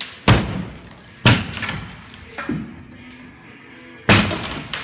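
Heavy demolition thuds with a ringing echo, as in a large hollow room. Two loud blows come about a second apart, followed by a lighter knock, a pause, and a third loud blow near the end, trailed by smaller knocks.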